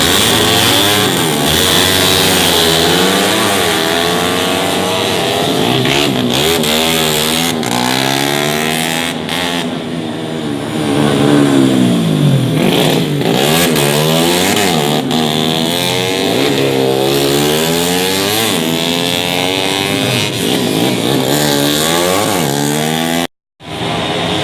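Several tuned 150 cc four-stroke underbone racing motorcycles passing at high revs one after another, their engine notes overlapping and sweeping up and down in pitch as each goes by. The sound cuts out for a moment near the end.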